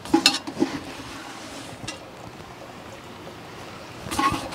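Vegetable scraps rustling and dropping as they are tipped from a stainless steel bowl into a corner of a plastic worm-bin tray, in a short burst just after the start and another about four seconds in, with a faint click between them, over a steady background hiss.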